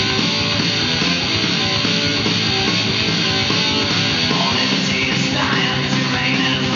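Rock music with electric guitar playing back from a vinyl LP on a Technics SL-20A turntable, steady and loud throughout.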